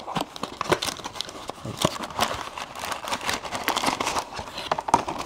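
A small cardboard puzzle box being opened and handled, the puzzle pulled out of it: a run of irregular rustles and crinkles of cardboard and paper.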